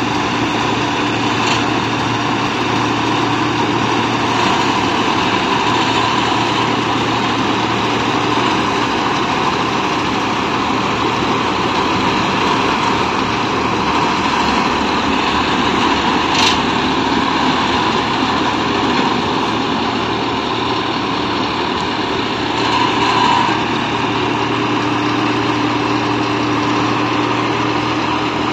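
Combine harvester running steadily as it cuts and threshes a rice crop, a constant engine and machinery drone with a couple of brief clicks, about a second and a half in and again about sixteen seconds in.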